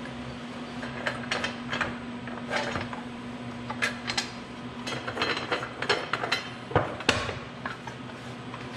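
Metallic clicks, clinks and knocks of a steel three-knife trimmer blade being handled with its bolt-on lifting handles and orange blade guard during a knife change, the loudest two knocks about seven seconds in, over a steady low hum.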